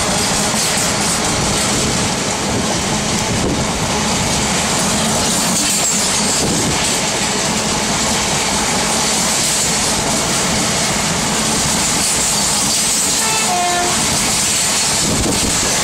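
Empty bogie flat wagons of a steel freight train rolling slowly past, their wheels rumbling and clattering steadily over the rails. A short train horn sounds near the end.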